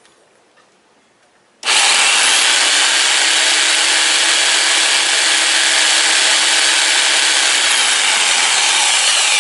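Lotus corded electric jigsaw switched on about two seconds in and running steadily at full speed with no load, its motor and reciprocating blade making a loud, even sound.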